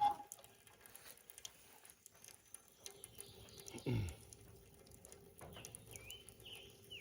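Gasoline trickling and dripping from a rototiller's fuel tank into a bowl as the tank is drained to clear out debris, with a single thump about four seconds in.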